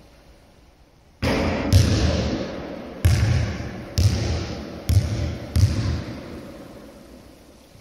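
Basketball striking a hard sports-hall floor. A loud bang comes about a second in and another half a second later, then four more bounces about a second apart, each echoing through the large hall.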